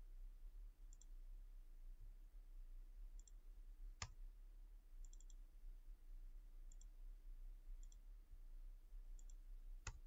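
Faint clicks from a computer keyboard and mouse as formulas are typed and cells selected, in small clusters every second or two, with two sharper clicks about four seconds in and near the end, over a faint low hum.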